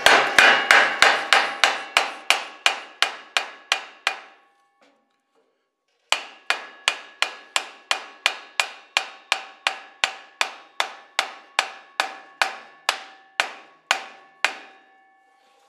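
Hammer striking a 2x4 held against a new aluminized muffler, driving the muffler onto a tractor's exhaust pipe. Steady blows about three a second, each with a short ringing tone, stopping for about two seconds around four seconds in, then resuming until shortly before the end.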